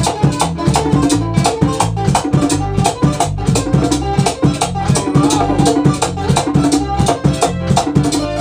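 Live band playing a song on two strummed acoustic guitars and a bass guitar, with a fast, even rhythm and a man singing.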